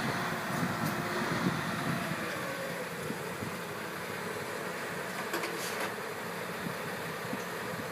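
Steady drone of an idling vehicle engine, with a few faint clicks about five and a half seconds in.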